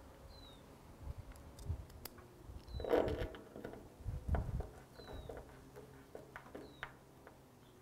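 Hand screwdriver turning screws into a board: faint creaks, scrapes and clicks as the screws bite, with a few knocks from handling, the loudest about three seconds in.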